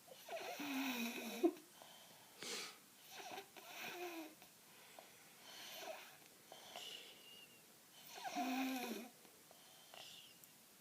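A four-year-old child snoring loudly, with rough, pitched snores on the breaths. The biggest snores come near the start and again about eight seconds in, with softer wheezy breaths between.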